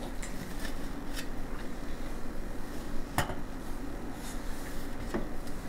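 Ceramic ramekins set down one by one on a metal wire cooling rack, giving a few light clinks, the sharpest about three seconds in.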